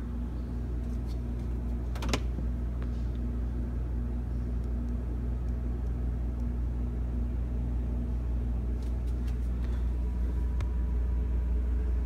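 Whirlpool side-by-side refrigerator running with a steady low hum, and a single sharp click about two seconds in.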